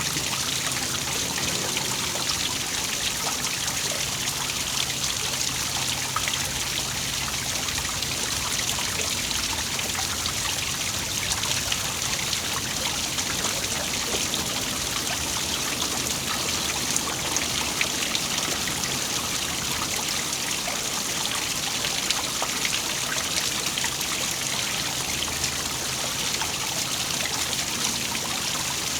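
Waterfall splashing and trickling steadily, an even hiss of falling water with fine splashing detail.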